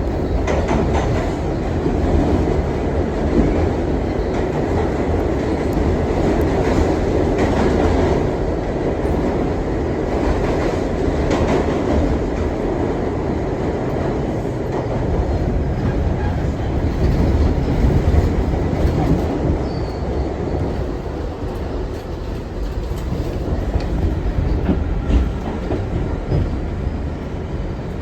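R62 subway car running along the track: a steady rumble of wheels on rail, with scattered clicks over the rail joints.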